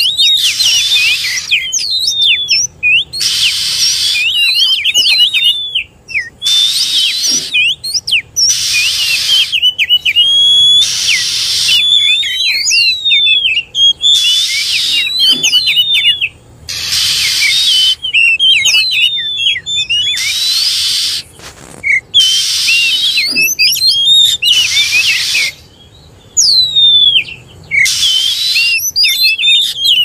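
Oriental magpie-robin (kacer) singing its aggressive fighting song: loud, rapid whistled phrases with quick rising and falling notes, alternating every second or two with harsh, raspy bursts.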